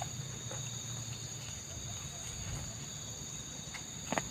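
Steady chorus of insects shrilling at several high pitches at once, with a couple of soft clicks near the end.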